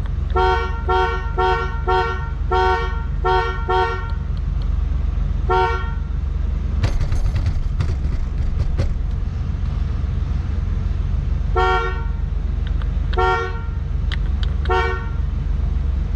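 Two-tone car horn sounded in short beeps: a quick run of taps over the first four seconds, then a few single beeps spaced out later. It is being tested after the steering wheel and horn button install, and it works.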